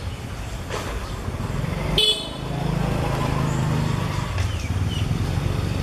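A short vehicle horn toot about two seconds in, followed by a motor vehicle's engine running steadily.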